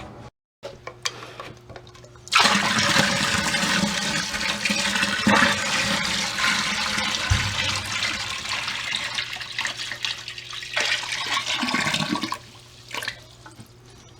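Water poured into a basement sump pit, splashing and rushing for about ten seconds, starting suddenly and stopping about twelve seconds in; it is filling the pit so the new pump's float can rise and switch the pump on.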